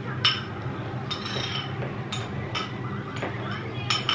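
A metal spoon clinking and knocking against ceramic bowls and a plate during a meal: about seven separate short clinks with a brief ring, the loudest just after the start, over a low steady background hum.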